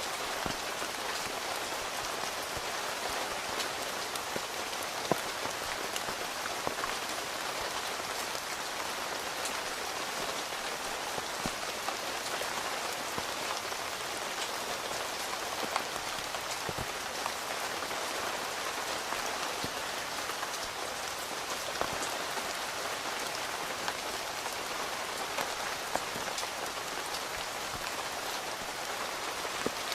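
Steady rain falling on a tent's fabric, heard from inside the tent: an even patter with sharper single drops ticking here and there.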